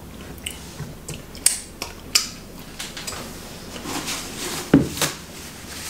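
Scattered small clicks and crackles of hands pulling apart a shell-on shrimp over a plate. About four seconds in come a few sharper snaps and a rustle as a tissue is pulled.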